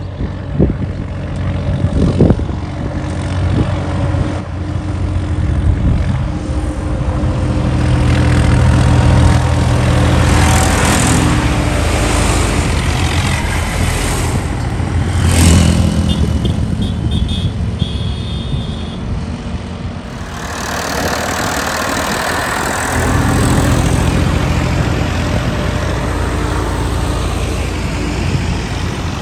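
Tractor diesel engine working under load, its speed rising and falling, with a short sharp noise about halfway through.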